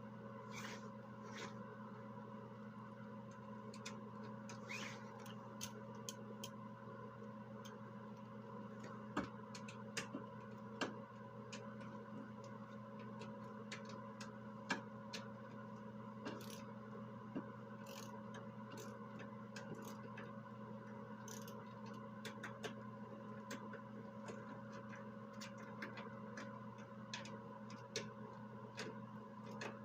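Scattered small clicks, taps and light scrapes of hand tools and small parts being handled, with a few sharper clicks, over a steady low hum.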